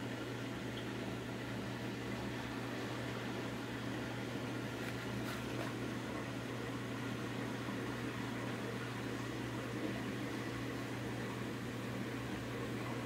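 Reef aquarium equipment running: a steady low pump hum over an even hiss of moving water.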